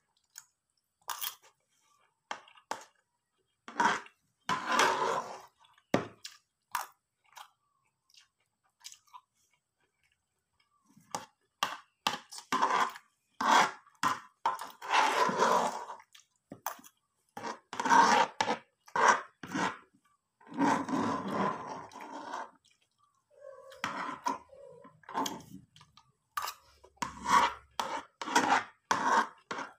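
A person chewing and crunching a mouthful of food close to the microphone, in irregular spells of crackly bites with a few seconds' pause in the first third.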